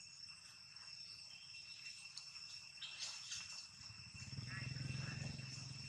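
Steady high-pitched chirring of insects in the grass, with faint scattered rustles and clicks. A low hum swells about four seconds in and runs to the end.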